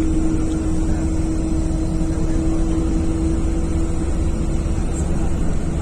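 Wind rumbling steadily on the microphone, with a steady engine hum underneath.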